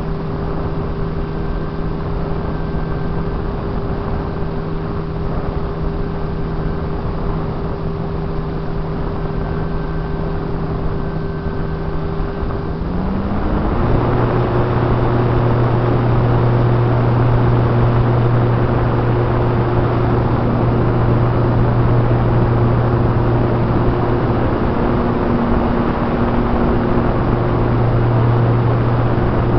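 RC plane's motor and propeller heard from a camera on board: a steady hum over rushing air. About 13 seconds in the pitch slides briefly up, then settles into a lower, louder drone that holds to the end.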